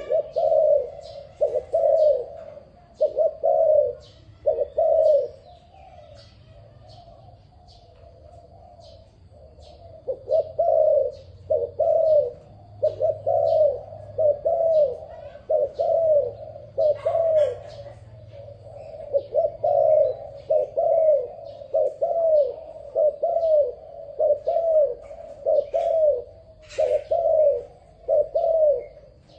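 A dove cooing in long runs of short coos, about one a second, with a pause of a few seconds near the start. Faint high chirps sound throughout.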